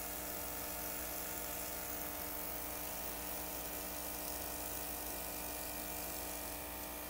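Small airbrush compressor running with a steady hum, with an even hiss of air from the airbrush.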